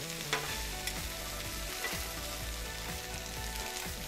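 Vegetables sizzling steadily on a hot steel griddle top, with a few light clicks and scrapes of metal spatulas against the steel.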